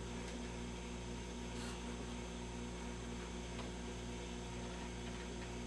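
Steady electrical mains hum, a low tone with a stack of even overtones over faint hiss, from powered-up vacuum-tube test gear and the TV chassis on the bench.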